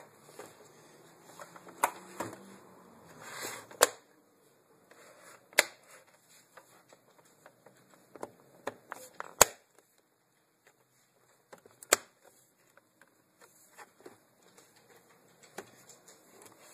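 Scattered sharp clicks and knocks of small hard objects being handled, a dozen or so at irregular intervals, with faint rustling between and a brief quiet spell about ten seconds in.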